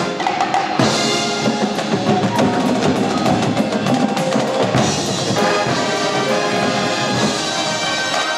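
Drum and bugle corps playing live, with brass chords over snare, tenor and bass drums. A fast run of drum strokes is densest through the first half.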